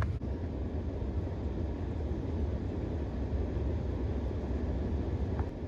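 Steady low rumble of running heat pump equipment, with one faint click near the end.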